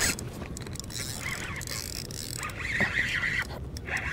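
Spinning reel being cranked while fighting a fish, with clicks and knocks of the tackle; the reel's whirring comes in two stretches, one about halfway through and one starting near the end.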